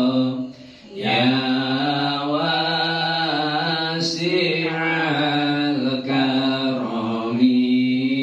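A man chanting an Arabic devotional praise song (pujian/sholawat) solo into a microphone, in long, wavering held notes. He breaks off for a breath about half a second in and resumes just after the first second.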